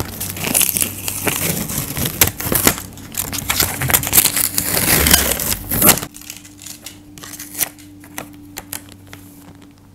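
Paper crinkling and rustling as a homemade sticker is peeled off its backing paper and handled, for about six seconds, then quieter paper handling with a few light taps.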